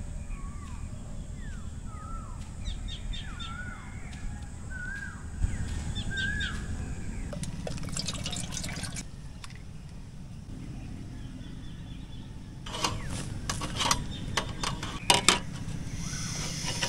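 A bird calling with short, repeated swooping whistles, about a note a second for the first six seconds, over a steady low rumble of wind or surf. Later come two clusters of sharp clicks and taps.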